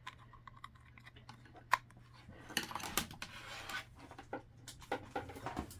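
Handling of a ring light's USB cable and a power bank on a wooden table: scattered light plastic clicks and rustles, with one sharper click nearly two seconds in, over a faint steady low hum.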